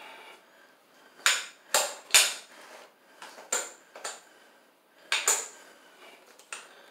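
Metal clacks from a Pro-Press crimping jaw being worked by hand while it sticks and won't open fully: a string of sharp, irregularly spaced clacks and clicks.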